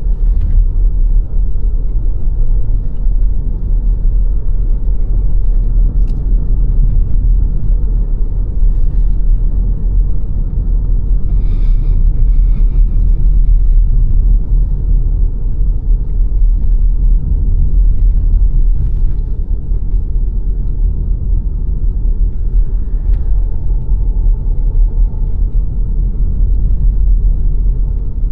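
A car driving at a steady pace: continuous low road and tyre rumble with engine drone, heavy in the bass and without letup.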